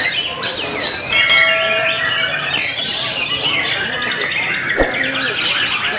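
Many caged songbirds singing and chattering at once, white-rumped shamas (murai batu) among them. About a second in, a steady bell-like ringing tone sounds for just over a second, and near the end there is a single sharp tap.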